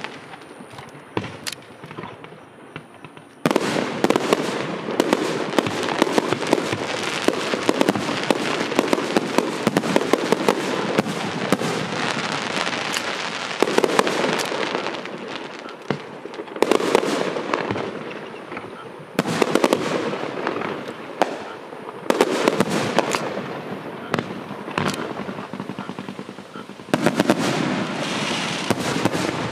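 Fireworks show: dense volleys of sharp cracks and bangs with crackling, coming in waves. It is sparser for the first three seconds or so, then thick and continuous, with short lulls between volleys.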